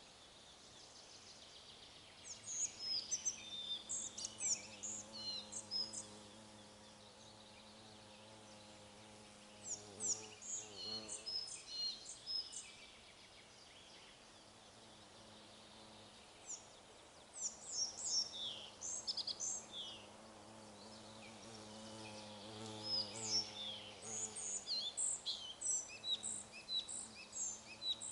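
Small songbirds chirping and twittering in quick clusters of short, high notes, in four spells separated by pauses of a few seconds.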